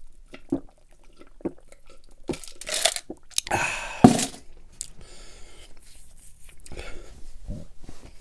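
A person gulping a drink from a glass, with a few swallows, then a long breathy exhale and a sharp knock about four seconds in as the glass is set down, followed by fainter breathing and small mouth sounds.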